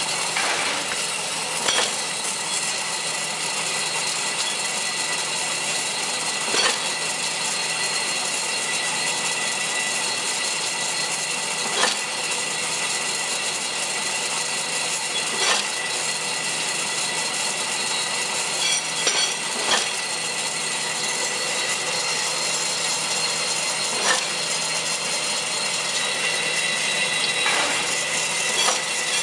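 Dough-processing machine running, its round-belt conveyor of many red belts turning over stainless steel rollers: a steady mechanical whir with several high whining tones. Sharp clacks come every few seconds.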